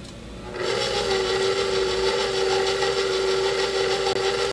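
KitchenAid stand mixer running its pasta roller attachment at the widest setting, rolling modeling chocolate into a thick sheet. Its motor starts about half a second in and then runs at a steady pitch.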